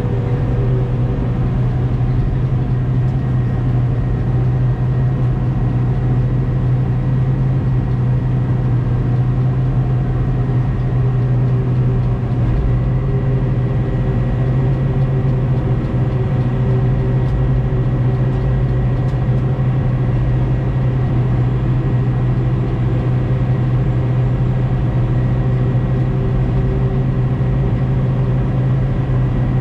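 Diesel engine of heavy equipment running steadily under a constant load, a deep even hum with a faint steady whine above it and no revving.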